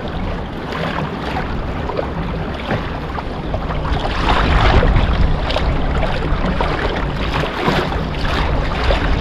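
Wind buffeting the microphone over water sloshing around a kayak, with a few brief louder surges of water noise.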